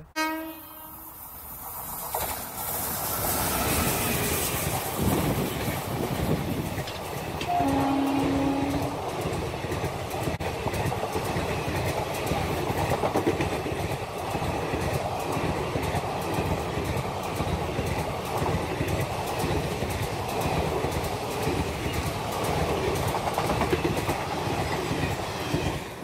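Express train with sleeper coaches passing at speed: a rising approach, then a steady rumble and the clatter of wheels over the rail joints. One short horn blast sounds about eight seconds in.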